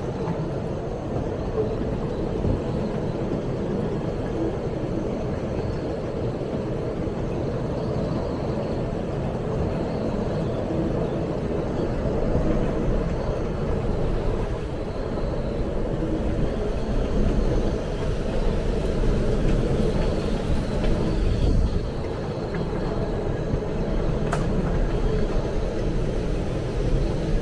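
Hurricane-force wind with heavy driving rain: a steady low rush of wind on the microphone, swelling a little for a few seconds past the middle.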